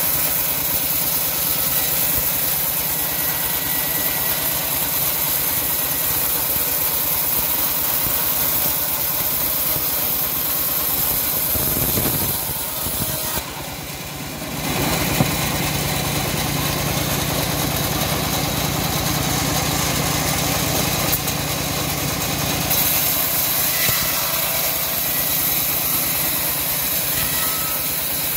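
Home-built bandsaw mill running steadily and ripping a plank lengthwise. The sound dips and changes briefly about halfway through as one cut ends and the sawn board is lifted away, then the blade cuts through wood again.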